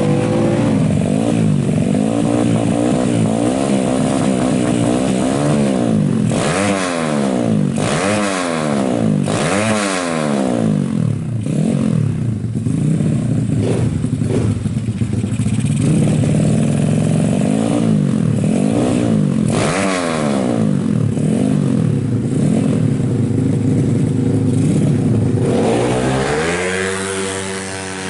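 130cc Suzuki Smash four-stroke single-cylinder engine with an AHRS racing exhaust, revving up and dropping back over and over, its pitch sweeping up and down every second or two. Near the end it climbs steadily.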